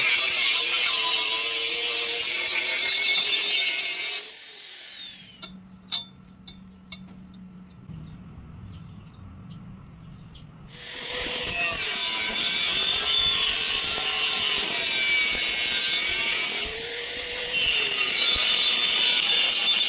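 A power tool working on metal, with a whining pitch that rises and falls under load. It stops about four seconds in and starts again about six seconds later.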